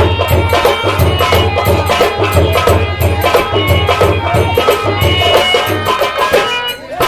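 Instrumental folk music from a nautanki troupe: a hand drum such as tabla or dholak keeps a steady rhythm under a wavering melodic line. The music dips briefly near the end.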